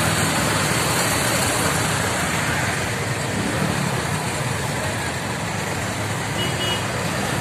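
Engines of many motorcycles running together in slow, crowded street traffic, with voices from the crowd mixed in.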